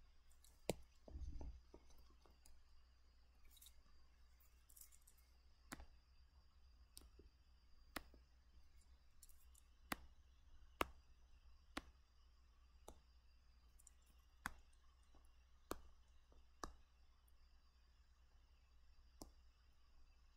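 Faint, sharp clicks of a computer pointing device at irregular intervals, coming about once a second in the latter part, over a low steady hum; a soft thump about a second in.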